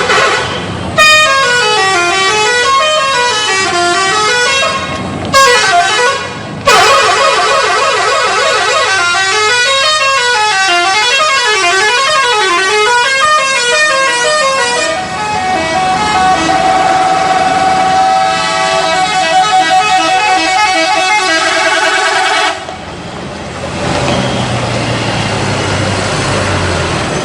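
Indonesian bus 'telolet' horn, a multi-tone musical air horn, playing quick melodies that run up and down in pitch, in long blasts broken by two short gaps. It drops away sharply a few seconds before the end.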